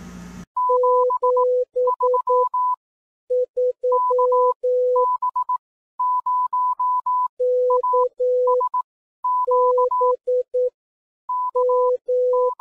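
Electronic beeps in short and long tones like Morse-code dots and dashes, switching between a high and a low pitch an octave apart. A low hum with radio noise cuts off about half a second in, just before the beeps start.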